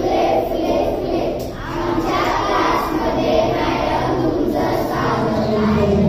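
A group of children's voices singing together in unison.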